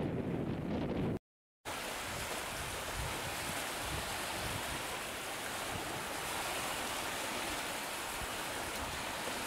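Wind rumbling on the microphone, then after a short dropout about a second in, a steady hiss of wind-driven choppy waves.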